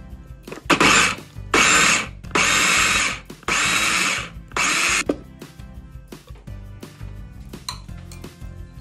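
Electric mini food chopper pulsed five times, its motor whirring in short bursts of half a second to a second as the blade chops onion and herbs in the glass bowl. The pulses stop about five seconds in.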